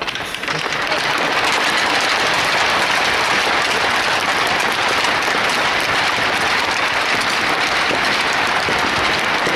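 Arena crowd applauding the ceremonial puck drop: dense clapping that swells up within the first second and holds steady and loud.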